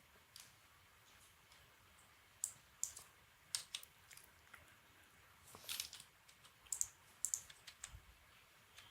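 Faint computer mouse and keyboard clicks, about a dozen short, irregularly spaced clicks, some in quick pairs.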